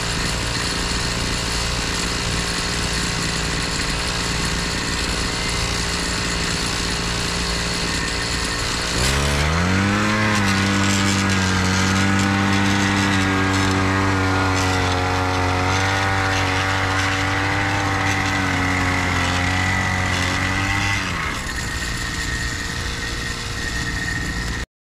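Small engine of a walk-behind mini tiller (cultivator) idling steadily, then throttled up about nine seconds in and run at higher speed while tilling the soil. It drops back to idle about 21 seconds in.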